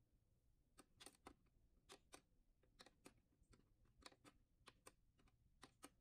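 Bedside wall light switches clicking as they are pressed over and over, a quick series of sharp clicks, many in close pairs.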